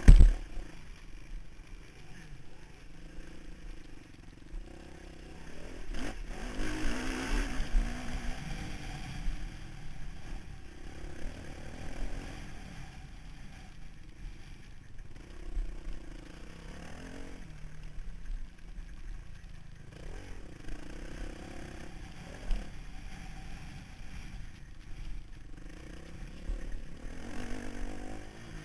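Motocross bike being ridden hard on a dirt track, heard from the rider's helmet: the engine revs rise and fall through corners and straights under a rush of wind on the microphone. There is a loud low thump right at the start and another about two-thirds of the way through.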